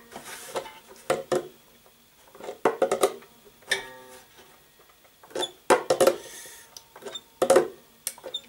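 Pliers working at the string ends by the tuning pegs of a handmade gusli: a series of sharp clicks and snaps, a few of them setting the strings briefly ringing.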